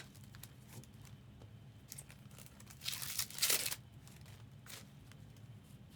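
Trading card pack wrapper being torn open and crinkled, with a louder tearing rustle about three seconds in and faint small crackles around it.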